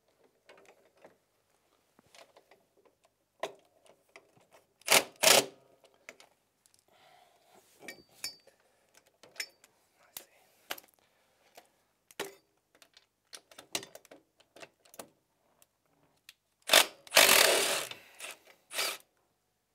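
Cordless power tool running in short bursts on the bolts of a snowmobile's front suspension: two quick bursts about five seconds in, then a longer run and another short burst near the end. Light metallic clicks and clinks of tools and parts in between.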